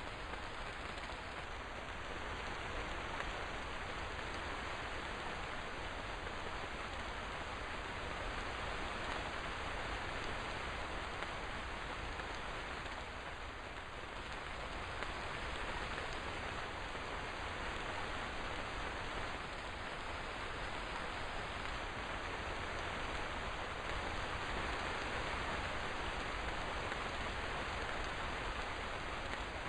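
Steady rain falling, an even hiss of raindrops on surfaces with no distinct drips or thunder.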